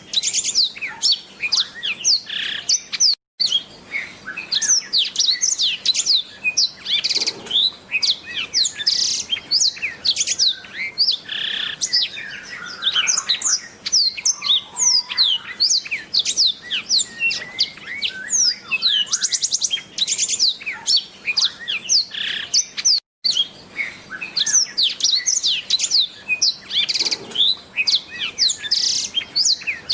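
Black-throated canary (blackthroat) singing a fast, continuous stream of high, quick downward-sweeping whistles and trills. The song breaks off twice in short silences, about three seconds in and again about two-thirds of the way through.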